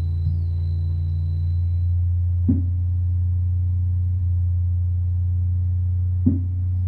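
Plumbutter patch-cable synthesizer playing a steady low electronic drone, with a short struck-sounding ping twice, about two and a half seconds in and near the end. A faint high steady tone fades out about two seconds in.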